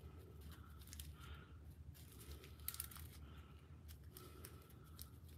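Faint crinkling of a small plastic zip bag and scattered light clicks of resin diamond-painting drills being handled over a plastic drill tray, over a low steady hum.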